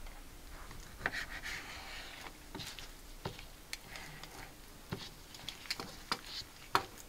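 Kitchen knife slicing raw chicken breast on a plastic cutting board. Scattered light taps and clicks of the blade against the board come with soft rubbing as the meat is handled.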